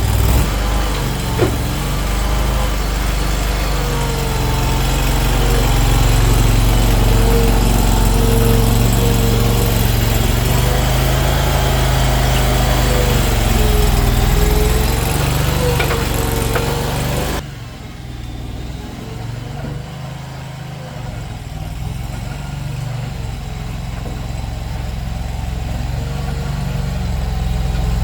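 Small engine of compact farm equipment, a mini skid steer or mini excavator, running steadily with a faint wavering whine over it. About 17 seconds in the sound abruptly turns quieter and duller, and the engine keeps running.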